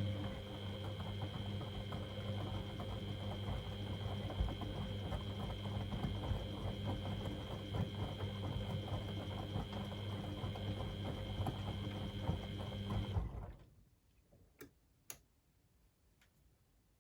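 Beko WMD 46160 washing machine running its cycle: a steady low hum with a higher whine over a dense, crackly rushing noise, which stops abruptly about thirteen seconds in, followed by two faint clicks.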